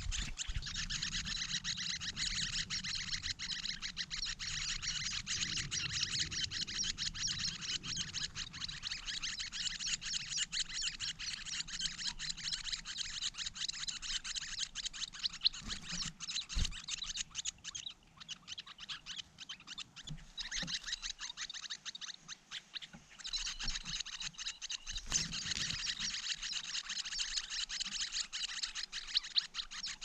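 Leiothrix nestlings begging: a dense, continuous stream of high-pitched chirps that drops away for a few seconds past the middle, then resumes.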